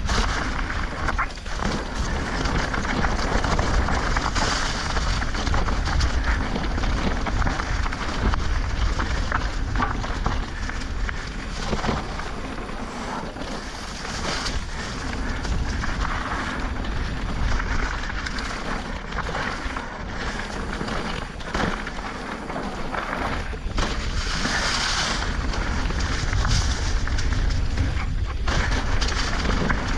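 Wind rumbling on the microphone under a steady rushing noise, broken by scattered short clicks and knocks.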